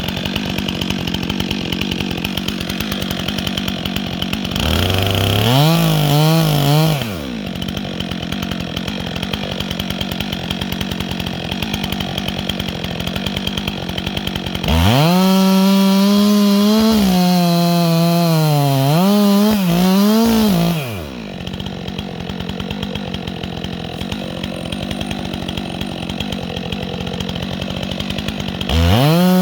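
Chainsaw engine idling between bursts of full throttle: a short rev about five seconds in, a long high-revving run from about fifteen to twenty-one seconds in whose pitch sags and recovers as it bogs down under load, and another rev near the end.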